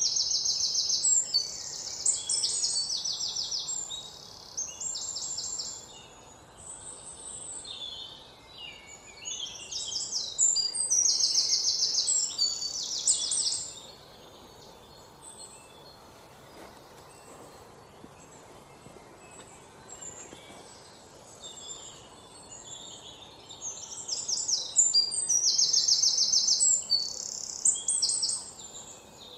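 Birds singing in bouts of rapid, high-pitched chirping trills: loud in the first few seconds, again about ten seconds in and near the end, with a quieter stretch through the middle.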